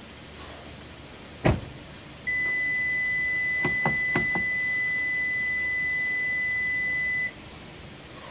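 Hyundai Sonata (LF) driver's door slamming shut, then a steady high-pitched beep from the car lasting about five seconds, with a quick series of four lock clicks about two seconds into the beep as the door-handle lock is pressed with the engine running.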